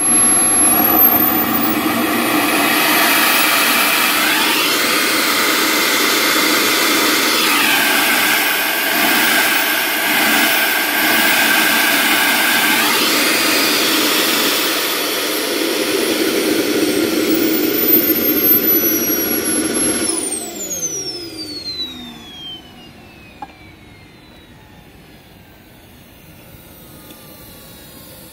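K-60G model jet turbine running at high speed, around 160,000 rpm, its whine shifting in pitch as the throttle is moved. About twenty seconds in it is shut off and spools down, the whine falling steadily in pitch and fading away.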